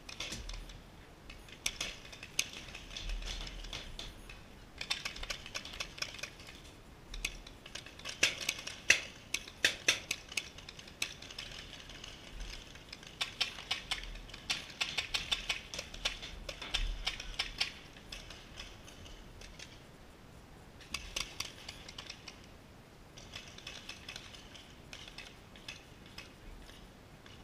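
Paintball markers firing in rapid strings, a fast crackle of small sharp pops that comes in bursts of a few seconds with short lulls between.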